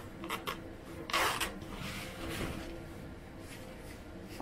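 Rustling as clothing is handled and unpacked: a couple of brief rustles, then a louder one about a second in.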